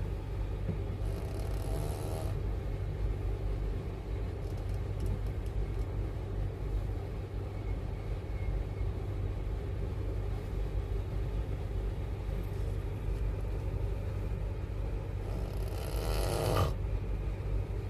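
Steady low rumble of a moving train, with a person snoring over it in noisy breaths every few seconds, the loudest snore near the end.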